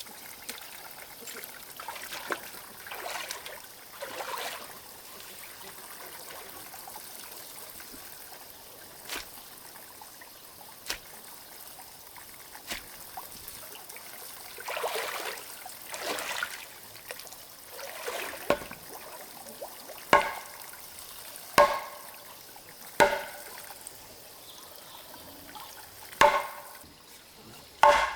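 Soft swishing and rustling, then five sharp ringing knocks in the last third, spaced about one to three seconds apart.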